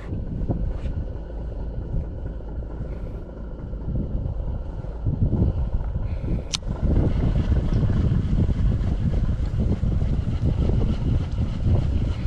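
Wind buffeting the microphone over open water, getting louder and gustier from about seven seconds in, with one sharp knock just before.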